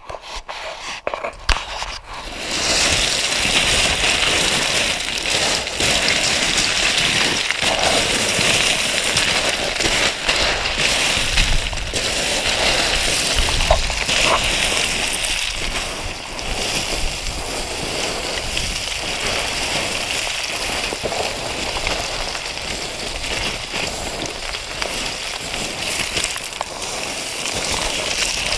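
Loose scree stones crunching and sliding under boots as a hiker runs down a scree slope: a dense, continuous clatter of small stones that starts about two seconds in and eases a little in the second half.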